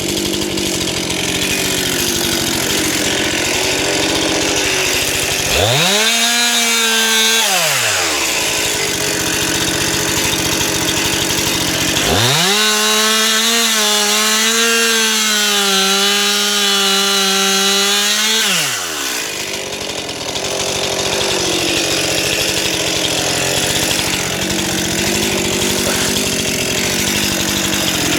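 Stihl MS 261 two-stroke chainsaw idling between cuts and twice revved to full throttle. The first burst is short, about six seconds in. The second, from about twelve seconds in, is held for about seven seconds with the pitch sagging slightly under load as it saws through the log being bucked.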